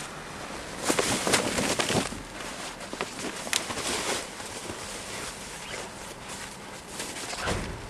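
Rustling and sharp clicks of a person handling bags and items in an open car boot, busiest and loudest about a second in. Scattered knocks follow, with a softer thump near the end.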